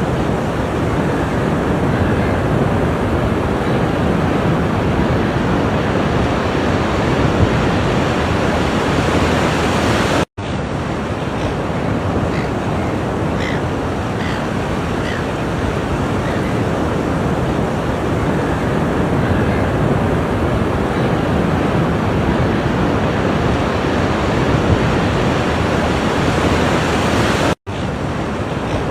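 Ocean surf washing steadily onto the shore, a constant wash of breaking waves. The sound cuts out briefly twice, about a third of the way in and near the end.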